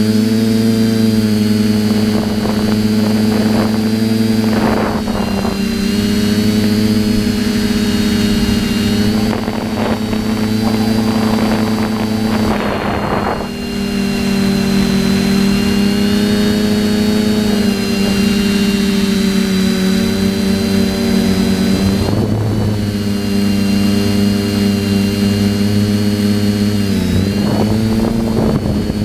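TBS Discovery quadcopter's electric motors and propellers buzzing steadily in flight, picked up close by the onboard camera, with a high whine on top. The pitch shifts slightly as the throttle changes, dipping briefly and recovering near the end, and a few short rushes of noise pass over it.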